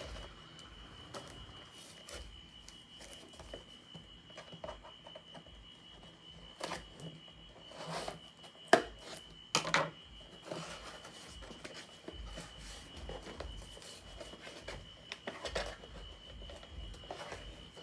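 Packaging handled while a small box is opened: scattered clicks, taps and rubbing, with a sharp knock about nine seconds in. Faint low bass thumps from a neighbour's loud music come through in the background.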